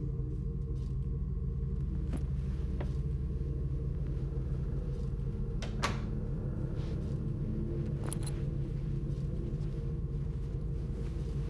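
A steady low rumbling drone, with a few faint clicks and knocks as bags are handled.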